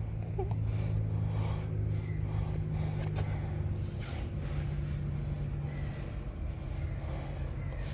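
Steady low mechanical hum, with a few faint short snuffles from pug and French bulldog puppies over it.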